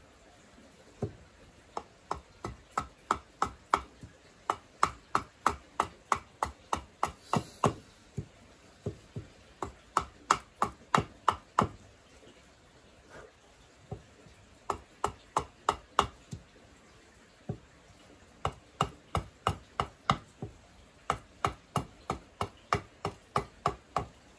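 Hatchet blade chopping into a wooden cup blank on a stump chopping block: quick, sharp knocks about three a second, in runs of several seconds broken by short pauses.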